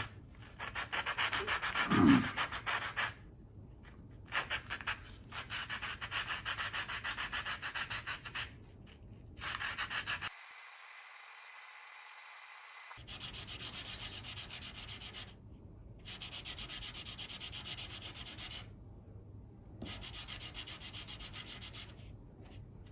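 Sandpaper rubbed quickly back and forth by hand on a thermostat housing's gasket surface, in runs of rapid strokes broken by short pauses. A brief thump about two seconds in.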